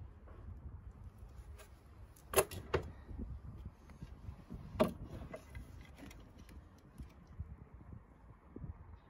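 Hand tools handled on a timber roof rafter: a tape measure and an aluminium spirit level clacking and knocking against the wood. Two sharp clacks come about two and a half seconds in, a louder knock near five seconds, and quieter ticks and rustling fill the rest.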